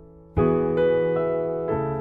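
Intro music on a piano-like keyboard: slow, sustained chords. A new chord is struck about a third of a second in, a couple of notes are added after it, and another chord comes near the end, each left ringing and fading.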